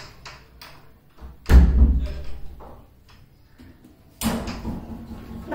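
A few light knocks, then one heavy thud about a second and a half in that fades over about a second. A louder stretch of noise follows near the end.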